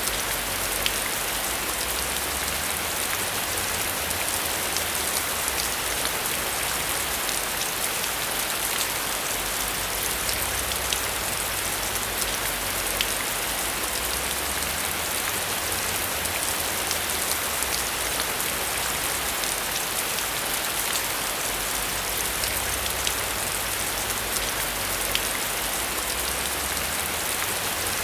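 Heavy rain falling steadily: a dense, even hiss of rain with many sharp individual drop ticks.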